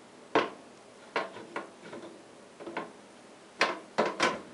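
Metal wood stove door knocking and clanking as it is fitted back onto its hinge pins: about seven irregular sharp metal knocks, with a loud one about half a second in and three close together near the end.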